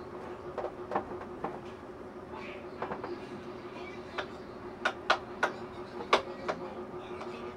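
A metal spoon clinking and scraping against a ceramic bowl and plate while eating, in irregular sharp clicks, several of the loudest coming close together about five to six seconds in, over a steady low hum.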